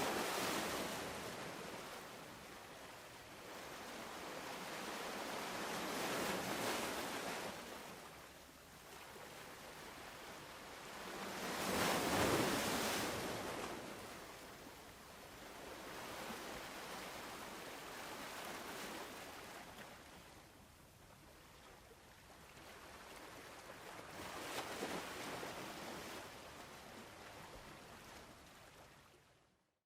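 Ocean surf: waves washing in and drawing back, one swell roughly every six seconds, the loudest about twelve seconds in. The sound cuts out abruptly at the very end.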